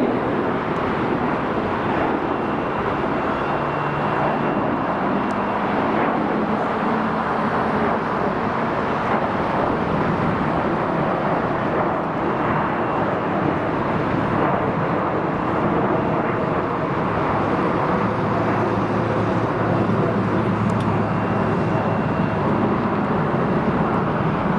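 Jet airliner climbing out after takeoff, its engines heard as a steady, even noise with a faint hum.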